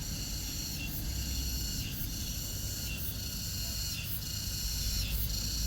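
Insects chirring in a steady high-pitched chorus that breaks briefly about once a second, over a low rumble.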